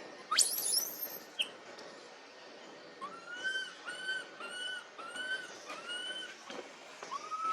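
A baby monkey crying: a sharp, high, rising squeal near the start, then a run of six short arched cries, about two a second, and one more near the end, the distress calls of an infant kept away by its mother.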